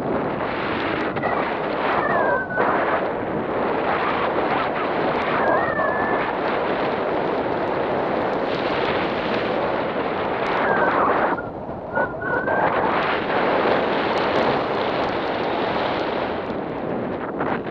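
Steady rushing wind buffeting the microphone of a camera carried on a paraglider in flight. A few faint, brief whistling glides sound over it.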